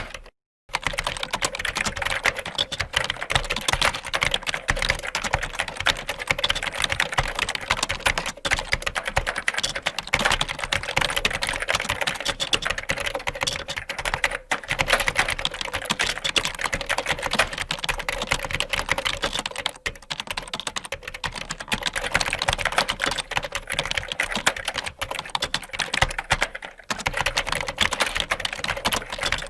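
Computer keyboard typed rapidly, a dense run of key clicks. The typing breaks off briefly about half a second in, then carries on without a pause.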